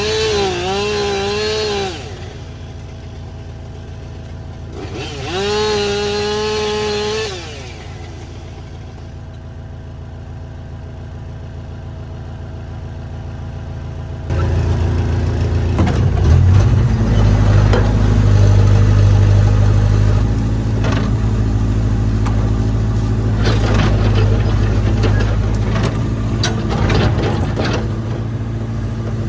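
Diesel engine of heavy earthmoving equipment, working at low power at first, then rising to a loud, steady drone under load about halfway through. Sharp cracks and snaps of wood breaking are heard over it as the dead tree is pushed and pulled down. Near the start there are two short, wavering, high-pitched whines.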